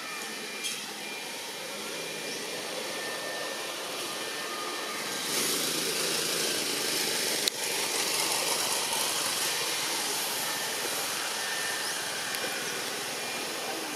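Steady outdoor rushing noise, growing louder about five seconds in, with a single sharp click about halfway through.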